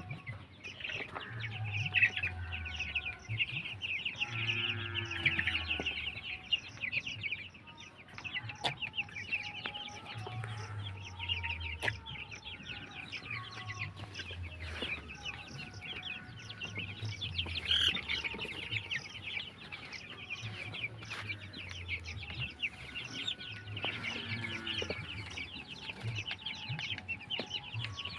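A flock of Vanaraja chickens clucking and chirping, many birds calling over one another without a break.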